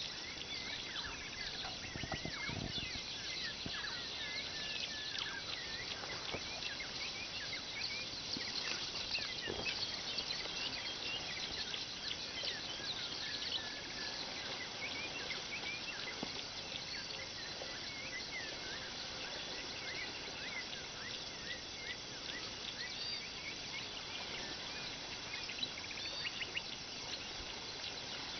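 Outdoor ambience of many small birds chirping and calling, overlapping, over a steady high insect drone.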